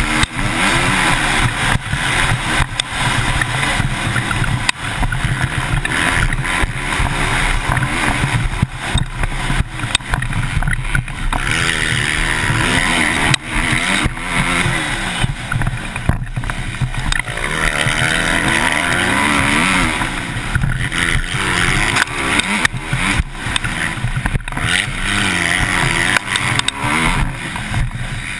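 Motocross bike engine revving hard and easing off again and again as the rider accelerates, shifts and brakes around the track, heard from the rider's helmet camera with wind noise and jolts from the bumps.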